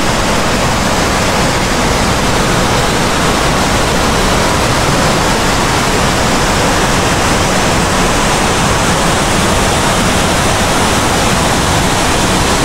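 Waterfall rushing: a loud, steady noise of falling water.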